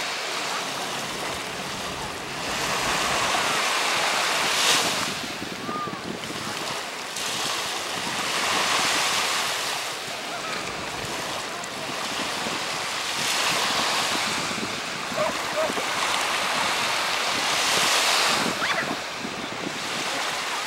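Sea waves washing onto a beach, swelling and falling about every four to five seconds, with wind buffeting the microphone.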